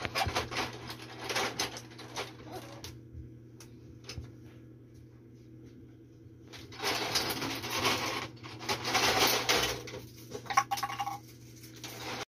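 Plastic toy tea cart being pushed and handled, its plastic cups, plates and thermos rattling and clicking against the tray. Two spells of clatter with a quieter stretch between them.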